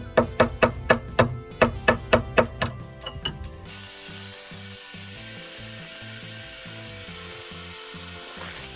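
Rapid sharp taps, about four or five a second, for the first three seconds. Then an angle grinder cuts steadily into the steel collar of an anti-roll bar drop link, an even hiss that stops abruptly just before the end.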